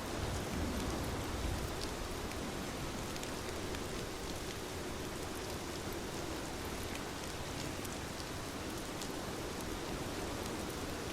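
Heavy rain falling steadily, with scattered sharp drop ticks over an even hiss.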